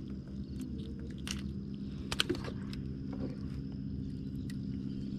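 A few sharp clicks and light rustling as hands unhook a giant freshwater prawn and pick up a fishing rod, the loudest clicks about a second and two seconds in. Under it runs a steady low hum with a faint high steady whine.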